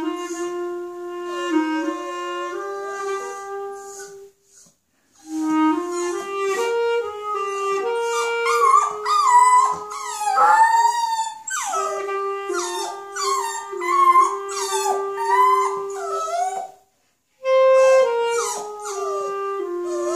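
A clarinet playing practice phrases of held notes while a dog howls along, its wavering howls gliding up and down over the notes and loudest about halfway through. The clarinet pauses briefly twice.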